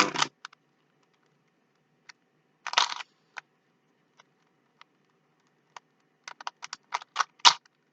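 Plastic Rubik's Cube being twisted by hand: scattered clicks and clacks of the layers turning, with a short rattling cluster about three seconds in and a quick run of clicks near the end.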